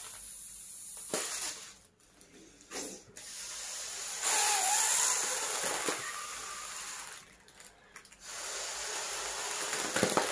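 Breath blown through a hollow pen into a silver foil balloon to inflate it: a rushing hiss of air in long puffs, with short pauses between them.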